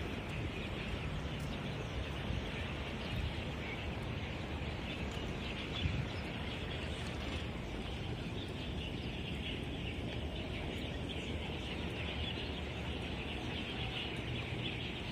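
Outdoor ambience: a steady, dense high-pitched chirring with a low rumble underneath.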